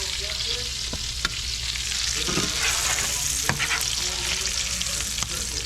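Cichlid fillets frying in butter in a pan, a steady sizzle, with a few sharp clicks, one a little over a second in and another about three and a half seconds in.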